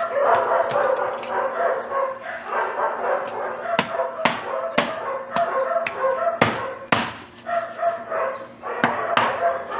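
A dog barking, with a run of sharp barks about twice a second through the middle and whining pitched sounds in between.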